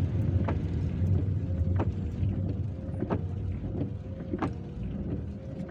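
Inside a car in slow traffic in heavy rain: a steady low engine and road rumble, with a light tick about every second and a quarter.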